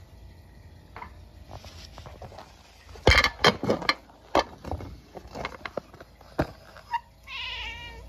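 A burst of loud knocks and thumps a few seconds in, then near the end a munchkin cat's wavering, trilling meow that falls off at its end, a call at a stink bug it has spotted.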